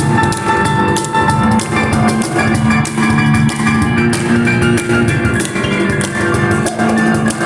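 Live instrumental piano and cajon duo: a Kawai piano plays chords and melody over a busy, steady cajon beat.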